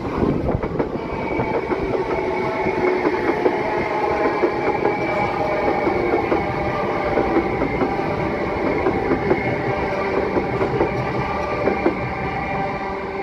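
A South Western Railway electric multiple-unit train running past close by: a steady whine from the train over rapid clicking of its wheels on the rail joints and pointwork, fading slightly near the end as it moves away.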